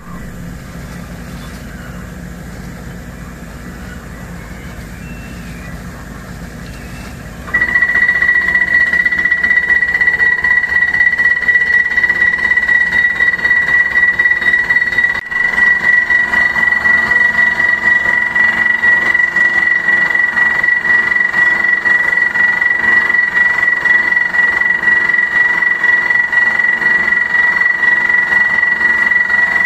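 Borehole drilling rig's engine running at a moderate level. About seven seconds in, a loud steady high-pitched whine sets in as the rig drills, running on over the engine.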